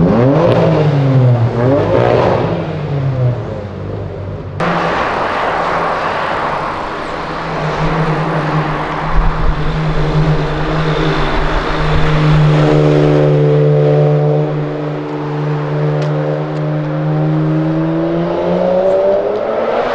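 Car engines revving and passing: a quick rev up and back down in the first two seconds. After a cut, a steady engine note, then a car accelerating past from about twelve seconds, its engine note rising and then falling away as it goes.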